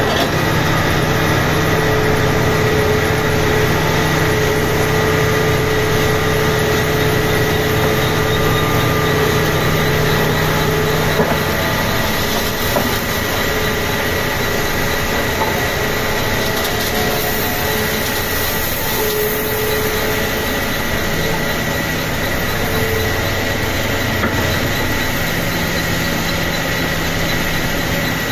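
Diesel engine of a Tata Hitachi tracked excavator running steadily as it digs and swings loads of gravel. A thin steady whine sits above the engine. The deep part of the engine note eases off in the middle and comes back near the end.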